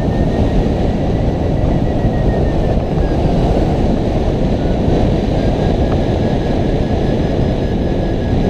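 Airflow buffeting the microphone of a camera mounted on a hang glider in flight: a loud, steady rush of wind noise, with a faint thin whistle held above it.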